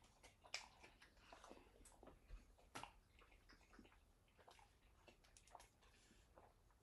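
Faint chewing and soft mouth clicks from people eating burgers, scattered over near silence.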